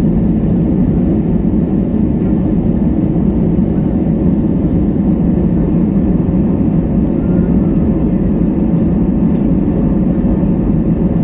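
Airliner cabin noise heard from a window seat during the climb after take-off: the jet engines and rushing air make a loud, steady low noise with a faint steady hum on top.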